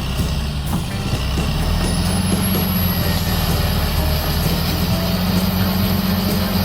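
Caterpillar D7 bulldozer's diesel engine running steadily while the dozer clears overgrown land.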